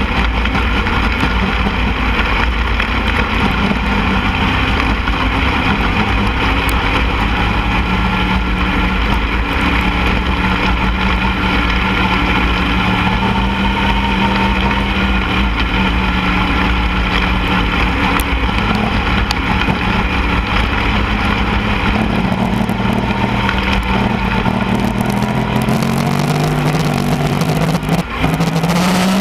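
Mini sprint car engine running at fairly steady revs with a heavy low rumble underneath, its pitch climbing over the last few seconds as it accelerates.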